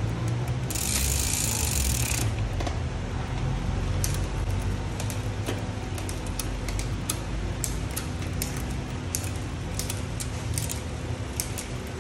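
Bicycle chain running over a 9-speed ZTTO cassette and rear derailleur as the pedals are turned by hand, with scattered sharp clicks from the drivetrain over a steady low hum. About a second in, a hiss lasts just over a second.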